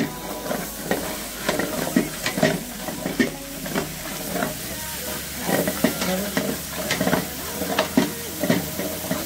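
A long-handled metal spatula scraping and knocking against a large metal pot as it stirs onions and spices frying in hot oil, with a steady sizzle underneath. The strokes come irregularly, several times a second.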